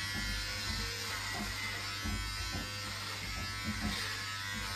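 Corded electric hair clippers running with a steady buzz as they cut a boy's short hair.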